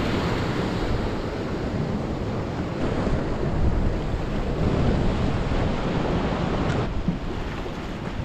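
Surf washing onto a sand and rock shore, with wind noise on the microphone.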